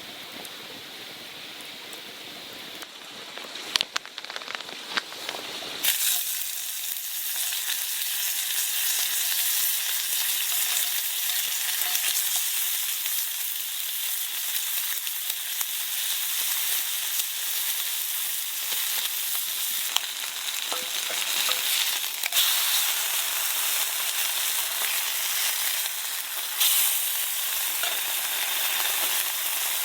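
Food frying in a hot pan. After a few light clicks and knocks, a loud, steady sizzle starts suddenly about six seconds in as the food goes into the pan, with occasional pops on top.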